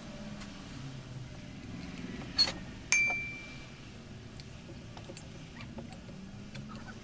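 Two sharp metal knocks about half a second apart, a tool or part striking the steel workbench; the second rings out with a clear bell-like tone that dies away within a second.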